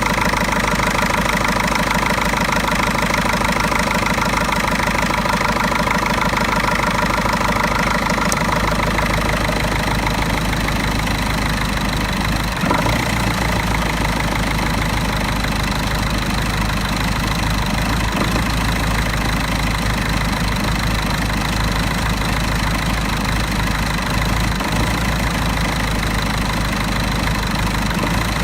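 Mercedes OM 646 four-cylinder diesel engine idling roughly with diesel clatter while still cold. A faulty EGR valve causes the rough idle until the coolant reaches 60 °C. The engine note changes slightly about eight seconds in.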